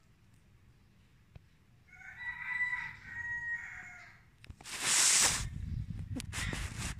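A rooster crows once, a call of about two and a half seconds starting about two seconds in. Just after it comes a loud burst of hiss-like noise, then a rumble with scattered scuffing and rustling sounds.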